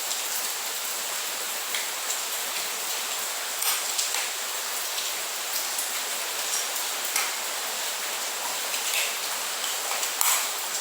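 A steady hiss, with a few faint clicks and taps as a pointed chisel bit is handled and seated in an impact drill's chuck; the drill is not running.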